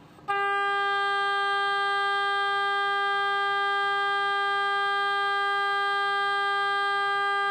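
Oboe sounding one sustained G above middle C, played as a long-tone exercise. It starts a moment in and holds at a steady pitch and volume.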